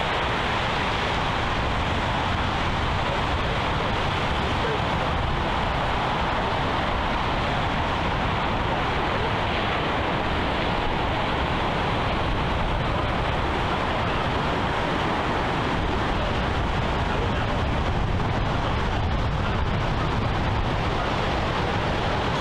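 Steady, unbroken seaside roar of surf on the rocky shore mixed with wind, holding an even level throughout.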